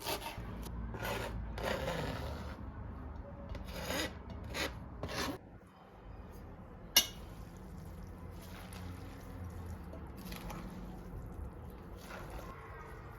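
Repeated rubbing and scraping strokes of kitchen food preparation, stopping about five and a half seconds in, followed by one sharp click about seven seconds in and quieter low kitchen noise.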